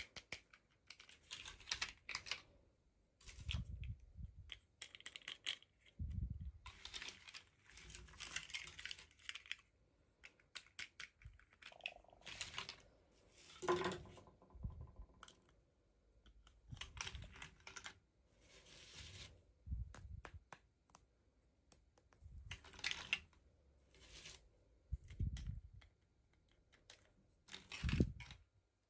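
Hands handling small plastic toys and their packaging: irregular clicks, taps and rustling. A sharper knock comes about halfway through and another near the end.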